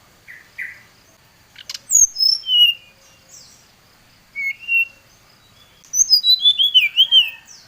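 Brown-chested jungle flycatcher singing: short high whistled notes, mostly falling in pitch, in scattered phrases, then a quick run of descending notes near the end.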